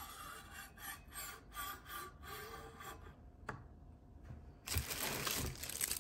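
Steel knife blade rasping in a slot of a Henckels self-sharpening knife block, several short rubbing strokes. Then a click, and a dense rustle of packaging for the last second or so.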